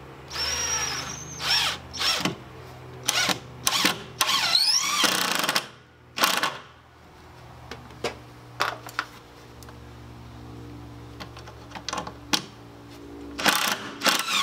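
Cordless drill driving screws into wooden roof framing: a run of the motor about half a second in, then a string of short trigger bursts, with a longer one about four seconds in whose whine rises as the screw goes home.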